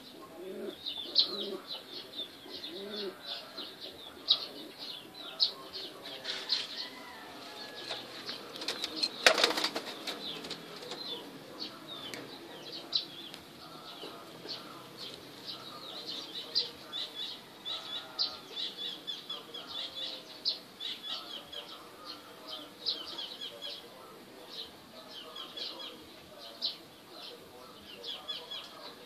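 Caged birds: a steady chatter of many quick, high chirps from small birds, with a few low pigeon coos in the first three seconds. A brief loud rustle about nine seconds in.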